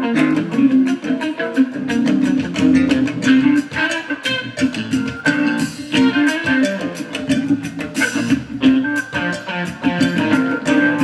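Live rock band playing: guitars over bass, with drums keeping a steady beat of cymbal strokes.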